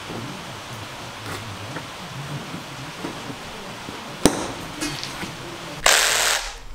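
Steady hiss of rain, with one sharp snip about four seconds in as scissors cut through the plastic garden-edging lip. Near the end comes a brief loud rush of noise.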